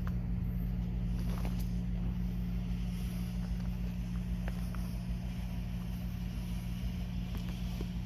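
Steady low engine hum with a constant pitch, over a low rumble.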